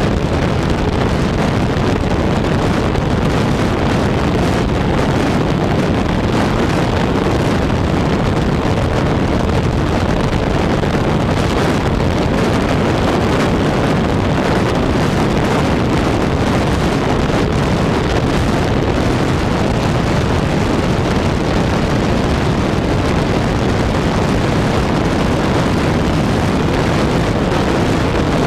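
Radio-controlled model airplane in flight, heard from its onboard camera: heavy, steady wind rush on the microphone over the drone of the spinning propeller.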